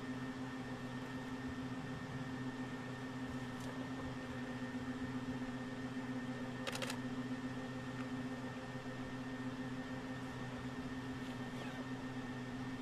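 A steady low mechanical hum with fixed tones, broken once by a brief sharp click about seven seconds in.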